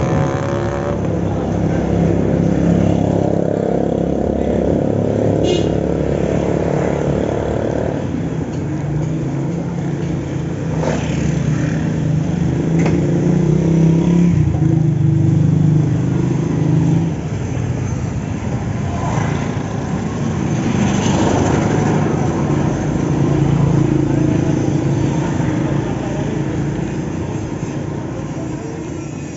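Vehicle engine running while driving along a street, its pitch shifting a few times as it speeds up and eases off, over a steady road and wind noise.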